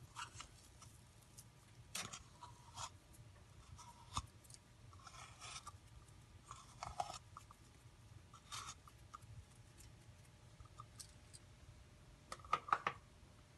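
Faint, scattered scraping and rubbing as sticky jaggery is pushed out of a plastic cup into a steel pot of cooked rice, with a louder cluster of scrapes near the end as a spoon works in the pot.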